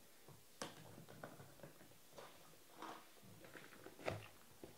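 Faint, scattered clicks and light knocks, about six in all, the sharpest one about four seconds in, over near-silent room tone.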